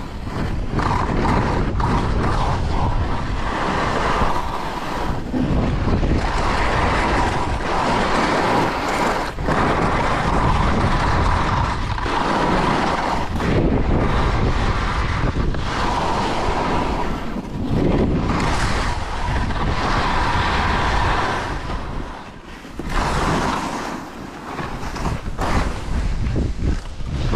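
Wind buffeting the microphone of a head-mounted camera during a fast ski descent, mixed with skis scraping and hissing over firm snow; the rush swells and eases with the turns.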